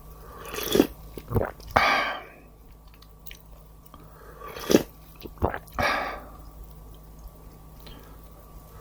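Close-miked eating: bites, mouth smacks and chewing in two bursts. The first comes about a second in and the second about four and a half seconds in. Each is a few sharp smacks followed by a longer noisy stretch.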